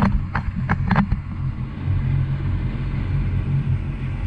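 Mini jet boat's engine running steadily under way, an even drone. A few short knocks or slaps come in the first second.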